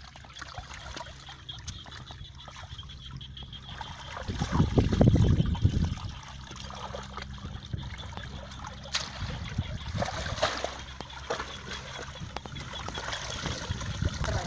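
Shallow paddy water splashing and trickling as a bamboo fish trap is handled and lifted out of it, with a louder rush about four seconds in and a few sharp knocks later on.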